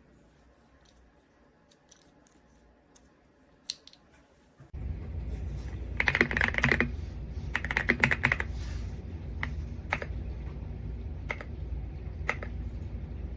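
Keys being typed on a YUNZII X98 mechanical keyboard: two quick runs of keystrokes, then single key presses about a second apart. A steady low hum comes in about five seconds in, just before the typing starts.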